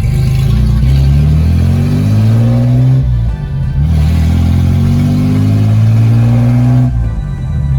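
Nissan 300Z's straight-piped 3.0-litre V6 under hard acceleration. The revs climb, drop at an upshift about three seconds in, climb again, and fall away near the end.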